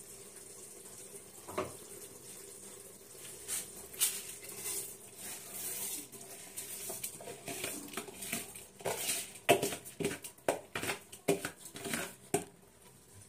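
Raw rice being poured from a plastic bowl into a pressure cooker, a steel slotted spoon scraping the grains out, over a faint steady hum. In the last few seconds comes a quick run of sharp clicks and taps as the spoon knocks against the bowl and the pot's rim.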